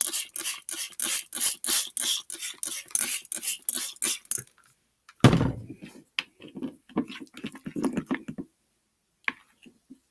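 A plastic trigger spray bottle of borax-and-water activator is pumped rapidly, about four hissing squirts a second, for about four seconds onto glue slime in a plastic bowl. After a brief pause there is a knock, then about three seconds of wet squelching as the slime is mixed by hand.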